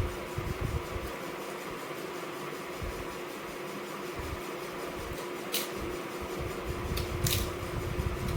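Steady fan-like hum with soft chewing thumps and a few short, crisp mouth clicks about two-thirds of the way through, as food is eaten close to the microphone.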